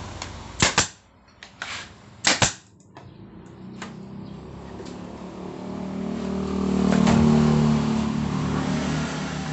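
Pneumatic brad nailer firing into the wooden frame: two quick pairs of sharp shots in the first two and a half seconds, then a few lighter clicks. A low motor hum then swells up, loudest a little past the middle, and eases off.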